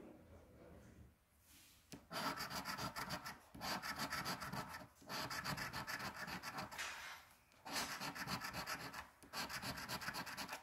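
A coin scraping the coating off a scratch-off lottery ticket in quick back-and-forth strokes. It starts about two seconds in and comes in several runs with short pauses between them.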